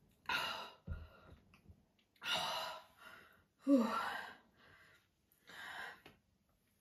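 A person gasping for breath after gulping soda: four heavy, breathy exhales a second or two apart, the third the loudest with a short voiced edge. A dull thud about a second in as the plastic soda bottle is set down on the table.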